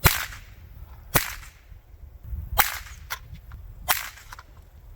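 Savage 64 semi-automatic .22 LR rifle firing four sharp shots, roughly one every second and a half.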